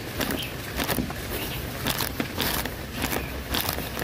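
Footsteps on wet paving stones, about two a second, over the steady noise of falling rain.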